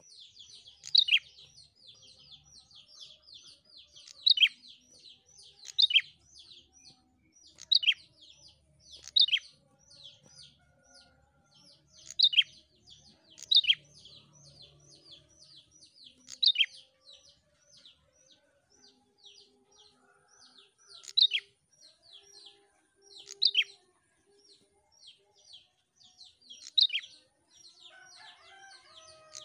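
Prenjak, a small rufous-headed tailorbird, calling in a fast, steady chatter of short falling high notes, about five a second, with a much louder, sharp note every second or two. Near the end there is a short lower-pitched chirping.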